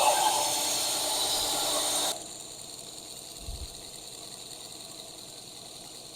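Belt sander grinding a steel knife blank, a rough rasping hiss with steady high tones, that stops abruptly about two seconds in. A faint hiss is left, with a soft low thump near the middle.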